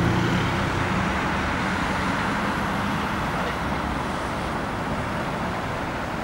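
Road traffic passing: a heavy vehicle's low engine hum fades away within the first second, leaving steady tyre and traffic noise that slowly grows quieter as the vehicles move off.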